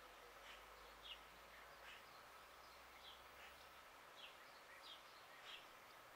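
Faint chirping of small birds: short, falling chirps scattered every second or so over a faint steady outdoor hiss.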